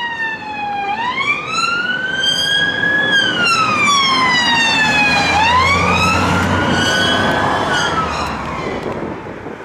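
Police car siren on a slow wail, its pitch sweeping up and down in long rises and falls of about two seconds each, and cutting off with a short drop near the end. The car's engine and tyres rumble beneath it, loudest midway as it passes.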